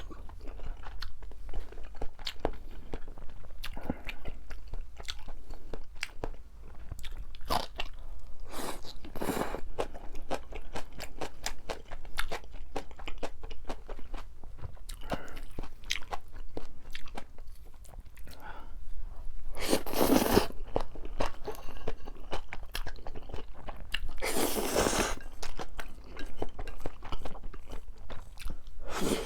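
Close-miked eating: Chapagetti noodles and green-onion kimchi being bitten and chewed, with a steady run of small wet clicks. A few louder rushes of noise, each about a second long, come in between.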